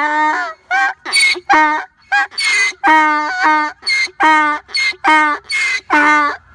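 An animal calling: a held call that breaks into a rapid run of short, clear-pitched calls, about two a second.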